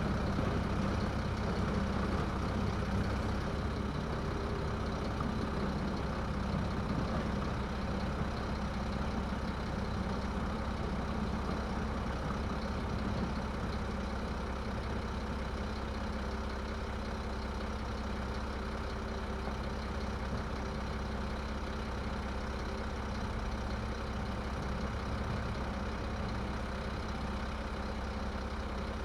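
Garbage truck engine idling with a steady, deep hum, a little louder in the first few seconds before settling.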